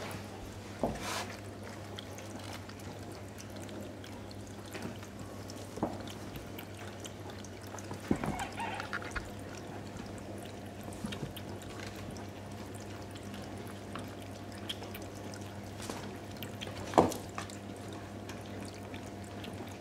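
Pet drinking fountain's pump humming steadily under trickling water while a Bengal kitten drinks and paws at it, with a few sharp splashes and knocks, the loudest near the end.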